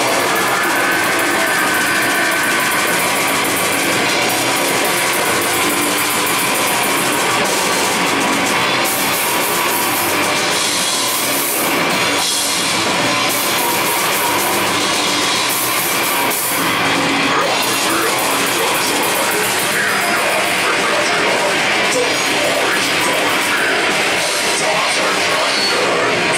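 A heavy metal band playing live and loud: drum kit and electric guitars going at a steady full volume throughout.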